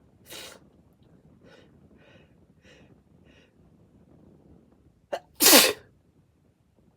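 A person sneezing wetly: a sneeze just after the start, a few short catching breaths, then a much louder sneeze about five seconds in.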